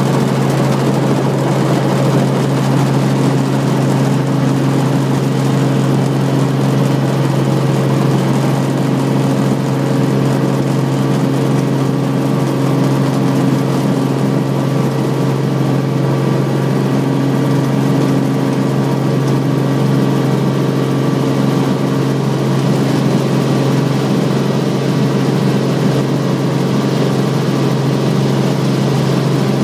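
Helicopter engine and rotor running steadily, heard from inside the cabin as it moves down the runway and lifts off: a loud, even drone with a strong low hum.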